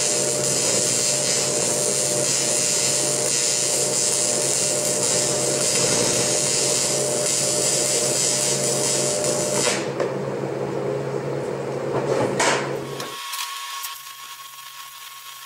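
Stick-welding arc from a nickel rod on cast iron, crackling and hissing steadily over a low hum. The sound shifts about ten seconds in and cuts off abruptly about 13 seconds in.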